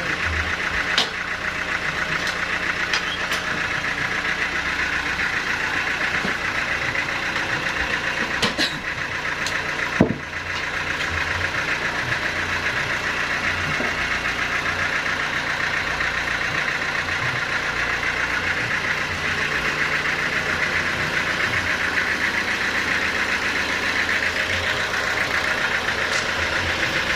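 Sawmill saw running steadily as it cuts through teak, a dense even noise over a low hum. A few sharp knocks cut through it, the loudest about ten seconds in.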